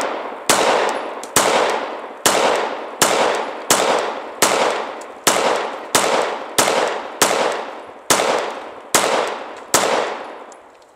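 Glock 19 Gen 4 9mm pistol fired about a dozen times at a steady pace, a little faster than one shot a second, each shot trailing off in an echo before the next.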